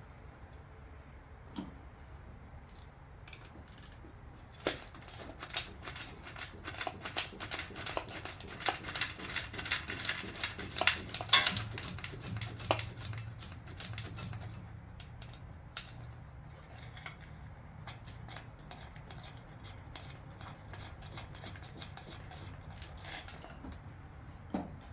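Hand tools clicking and clinking on metal while the intake manifold bolts of a Chevy 350 V8 are worked loose. A few clicks at first, a dense run of rapid clicks through the middle, then sparse clicks again.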